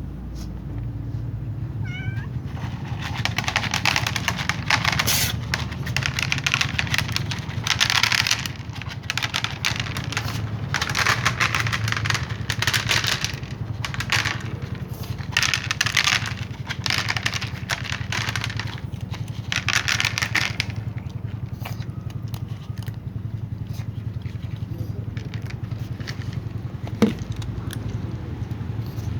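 Domestic cats at close range: a string of noisy bursts about a second long, with one sharp click near the end, over a steady low hum.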